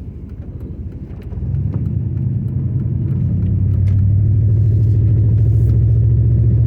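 A heavy engine's low, steady drone, holding one pitch. It swells suddenly about a second and a half in and stays loud.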